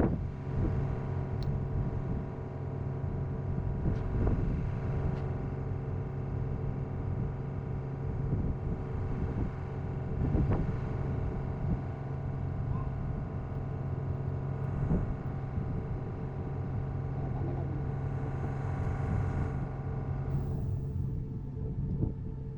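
Truck engine running steadily, with a few short knocks over the top.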